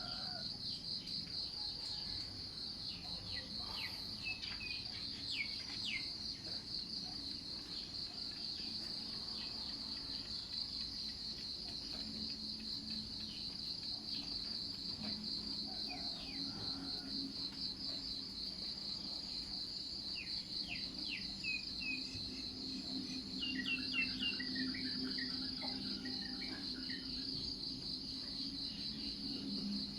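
Steady, rapidly pulsing chorus of crickets, with short, falling bird chirps scattered over it that grow busier in the latter part. A faint low hum runs underneath.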